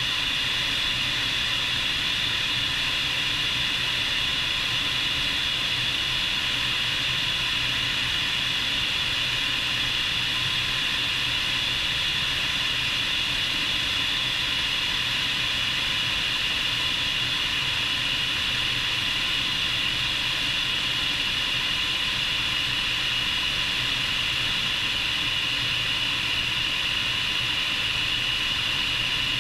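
Bell 430 helicopter heard from outside on its wing: the twin turboshaft engines' steady high whine over a constant rush of air and rotor noise.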